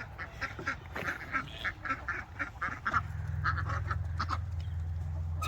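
Farmyard fowl calling in a rapid series of short, repeated calls, several a second. A steady low hum comes in about halfway through.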